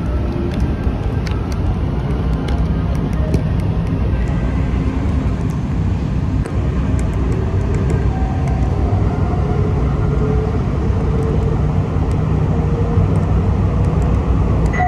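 Metro train running along elevated track, heard from inside the front car: a steady rumble of steel wheels on rail with a faint motor whine, and a few light clicks in the first seconds.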